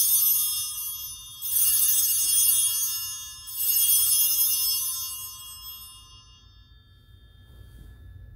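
Altar bells rung at the elevation of the chalice: three rings, the first already sounding at the start and the next two about one and a half and three and a half seconds in, each bright and high and fading slowly before dying away about six seconds in.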